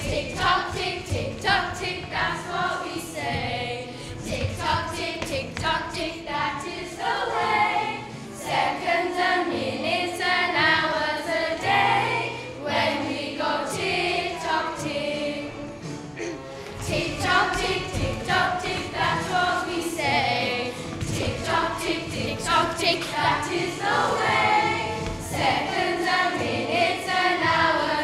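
A song with singing over a steady beat.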